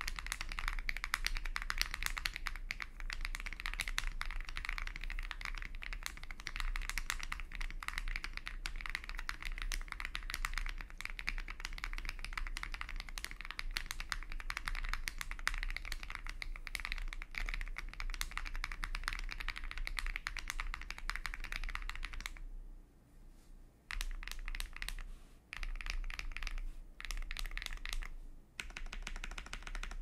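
Typing on an Akko ACR Pro Alice Plus keyboard fitted with lubed Akko Vintage White linear switches: a dense, steady stream of keystrokes. About three-quarters through, the typing stops for a second and a half, then comes back in short bursts with brief pauses between them.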